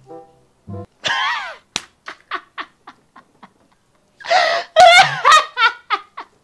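A person laughing hard. A rising, gasping laugh comes about a second in, then short breathy bursts, and a loud, sustained belly laugh takes over about four seconds in. A few notes of background music sound at the very start.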